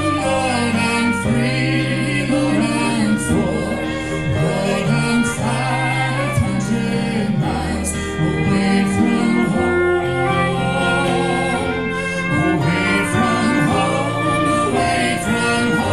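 Folk trio-style band singing in harmony over string instruments, several voices together carrying a slow melody.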